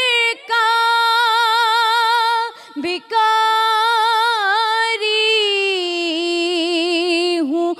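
A woman singing a naat, drawing out long held notes with a wavering vibrato, with a short break for breath about two and a half seconds in.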